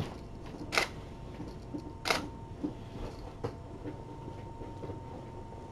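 Camera shutter clicking twice, about a second and a half apart, followed by a few faint ticks.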